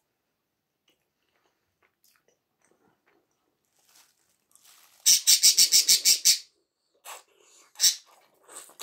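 Close-up eating sounds from a mouthful of raspberry-covered vareniki eaten by hand. Past the middle comes a quick run of about eight loud clicks, then near the end a single loud smack as a piece is bitten.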